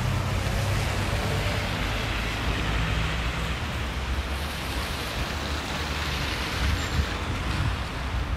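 City street traffic on wet asphalt: car engines running and tyres hissing through the wet, with a nearby engine loudest in the first few seconds, over a steady hiss of wet snow falling.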